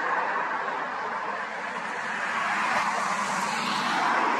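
Steady hiss of car tyres on the road, a car going by, growing a little louder toward the end.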